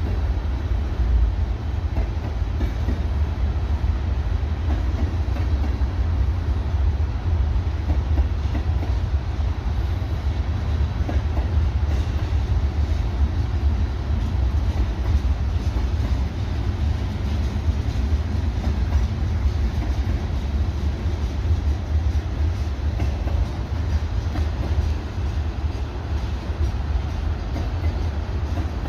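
Freight train cars rolling steadily past, with a heavy low rumble and the faint clatter of wheels over rail joints.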